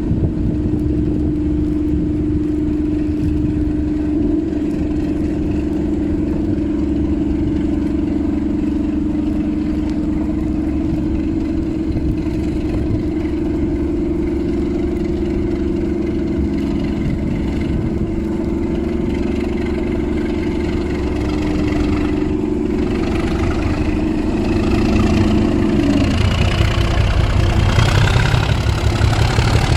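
Network Rail Class 97/3 diesel locomotive 97304 (a rebuilt Class 37 with an English Electric V12) running with a steady hum. Near the end the engine note grows heavier and a high whistle rises in pitch as power is applied to move off.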